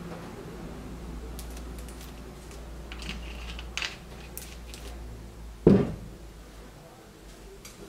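Lemon-lime soda poured from a plastic bottle into a glass of ice, fizzing and hissing and fading out, then a few light clicks, and a plastic soda bottle set down on the table with one loud thump about six seconds in.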